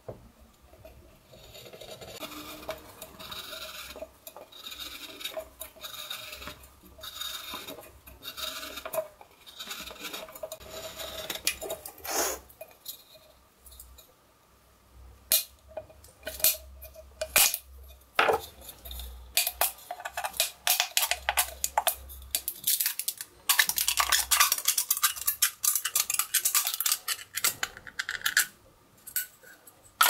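The small blade of a Victorinox Swiss Army knife scraping and scoring around the thin aluminium wall of a drink can, in repeated rasping strokes. These give way to sharp clicks and a dense run of rapid scratching as the blade cuts the bottom of the can free.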